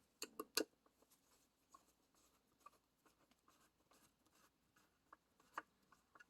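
Small parts and a screwdriver being handled while fitting a graphics-card waterblock: three sharp clicks in quick succession just after the start, then faint scratching and light ticks, with one sharper tick about five and a half seconds in.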